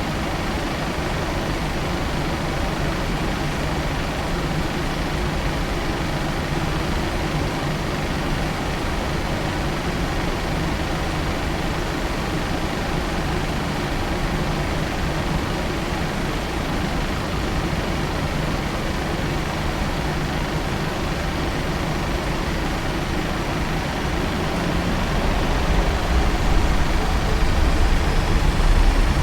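Steady cabin noise of a Boeing 737-900 on the ground before takeoff: its CFM56-7B engines running at low power under a hiss of cabin air. A low rumble grows louder over the last few seconds.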